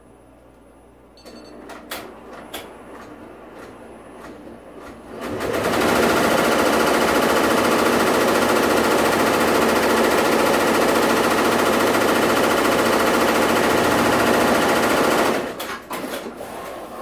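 Six-head multi-needle embroidery machine: a few knocks at first, then about five seconds in all the heads start stitching with a loud, fast, steady rattle of needle strokes. The stitching runs for about ten seconds and stops about fifteen seconds in, followed by a few more knocks.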